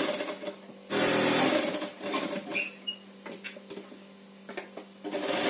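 Brother sewing machine running a straight stitch in short runs: it runs at the start, stops briefly, and runs again for about a second. It then pauses for about three seconds with light clicks while the saree fabric is shifted, and starts up again near the end.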